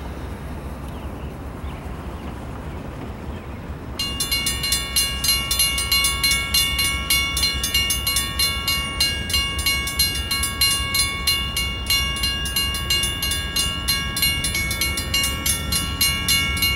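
Two mechanical railroad crossing bells, a Western Cullen Hayes and a Safetran, start ringing about four seconds in as the crossing signal activates. Their rapid, overlapping strikes continue steadily, with the Safetran bell sounding a bit weak.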